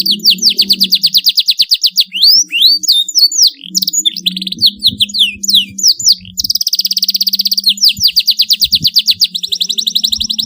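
Canary singing: fast trills of rapidly repeated high notes, broken in the middle by a run of varied sweeping, rising and falling notes, then another long rapid trill near the end.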